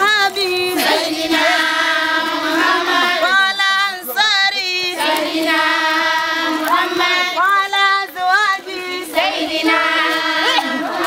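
Group of women singing together in unison, holding long notes that bend and slide, in phrases with brief breaks between them.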